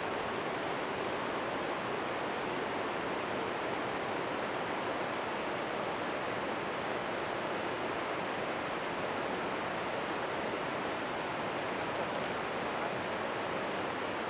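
Steady rush of white water from a forest river's rapids and waterfall, an even hiss with no breaks, with a thin steady high tone above it.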